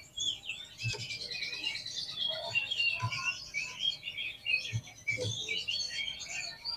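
Oriental magpie-robin (kacer) singing a fast, unbroken stream of varied, high chattering notes. There are a few soft low thumps beneath the song.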